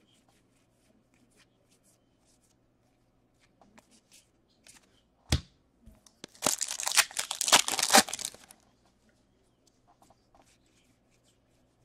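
A trading card pack's wrapper being torn open by hand: about two seconds of crinkly tearing midway through, after a few light clicks and a single knock.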